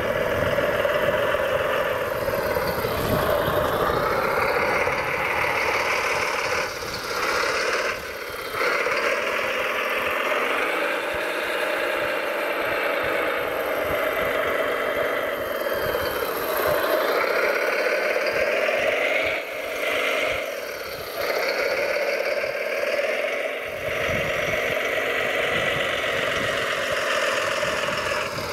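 Radio-controlled model construction machine's electric drive motors and gearing whining, the pitch rising and falling as the machine works, with a few brief dips.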